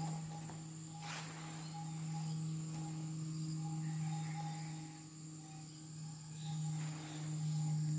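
Insects chirping, with short repeated notes over a steady high trill, above a steady low hum.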